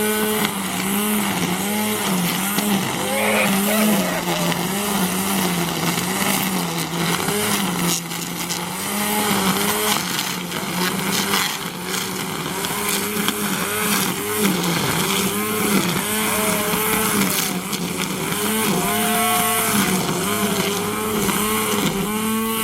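Engines running, their pitch rising and falling again and again.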